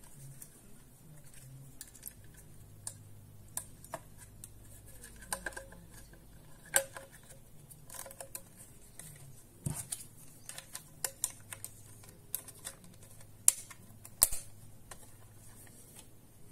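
Irregular plastic clicks and taps from fitting a 9-volt battery into the back of a handheld LCD multimeter, as the battery clip is pressed on and the case and stand are handled. A few of the clicks are sharper and louder than the rest.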